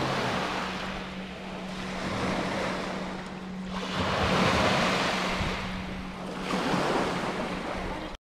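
Lake Superior waves washing ashore, the rush of water swelling and easing every couple of seconds.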